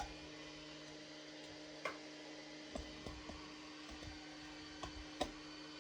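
A few faint, scattered clicks and light knocks from small objects being handled, over a steady low hum.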